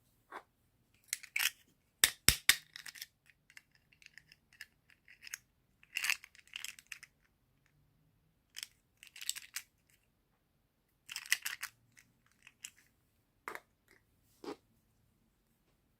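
Toy packaging being handled during an unboxing: intermittent crinkling and rustling in short bursts, with a quick run of sharp clicks about two seconds in and a few single taps near the end.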